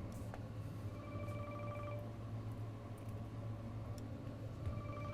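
Telephone ringing: two trilling rings about a second long, the second one starting near the end, over a steady low hum.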